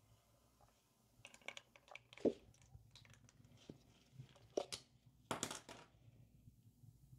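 A few faint, irregular knocks and short scrapes of a plastic pitcher and silicone spatula against a silicone-lined soap mould as thick soap batter at trace is poured, the sharpest knock about two seconds in.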